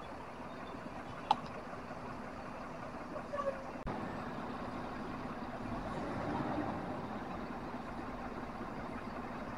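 Bus engines running at a bus terminal: a steady low drone mixed with traffic noise, with one sharp click about a second in. The level rises a little after about five seconds.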